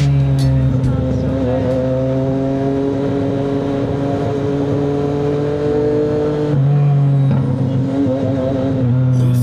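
CFMoto 675NK's inline three-cylinder engine running under way. Its pitch holds nearly steady, then shifts abruptly about six and a half seconds in and again near the end.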